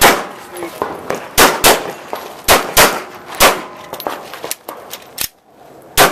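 Pistol shots fired in a course of fire, about eight sharp reports with several coming in quick pairs, each trailed by a short ring.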